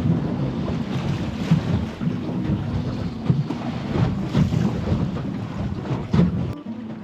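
Wind buffeting the microphone on a small boat at sea, with the wash of waves around the hull and a few light knocks; the low wind rumble cuts off suddenly near the end.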